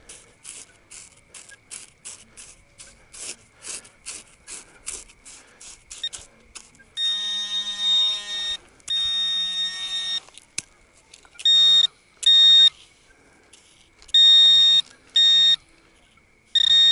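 Metal detector pinpointing a buried target. Quick electronic ticks at about four a second give way to a series of loud, steady beeps, some about a second long and others short, as the probe sits right over the metal.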